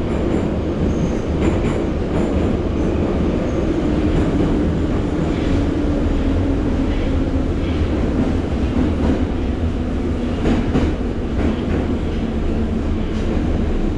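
Metro train heard from inside the carriage, running with a steady rumble of wheels and motors, then slowing as it pulls into a station; a faint whine falls slightly in pitch through the middle.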